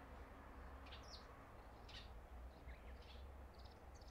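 Near silence with a faint low rumble, over which small birds give short high chirps, about one or two a second.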